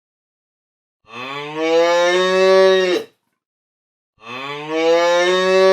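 Cow mooing: two long moos, about a second apart.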